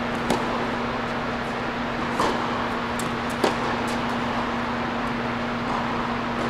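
Tennis balls struck by rackets and bouncing on an indoor hard court during a rally: three sharp pops, at the start, about two seconds in and a second later, over a steady background hum.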